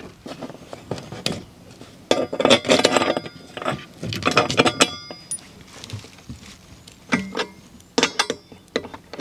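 Metal clinking and rattling in a few short bursts with brief ringing tones: steel bolts, nuts and a welded square-tube frame knocking together as the frame is bolted down onto plywood.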